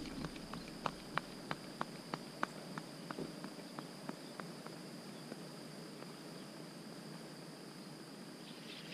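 Running footsteps on an asphalt road, about three quick steps a second, fading away as the runner moves off from the microphone, over a faint steady high-pitched hiss.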